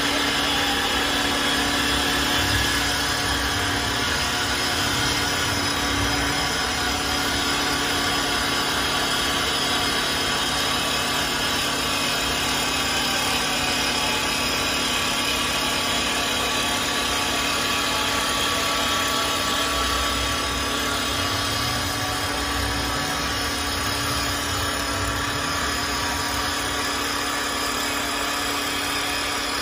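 CNC wood lathe running, spinning and cutting a wooden workpiece: a steady machine whine over a haze of cutting noise.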